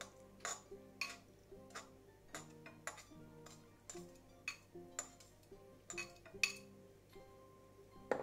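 Quiet background music: a steady ticking beat, about two ticks a second, over held low notes that change every beat or two.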